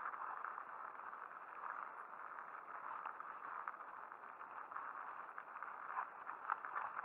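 Mountain bike riding over a rough forest trail with patches of snow: steady tyre rolling noise with frequent short rattles and knocks from the bike, heavier about six seconds in.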